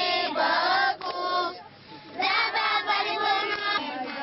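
A group of children singing together, with a short break about one and a half seconds in.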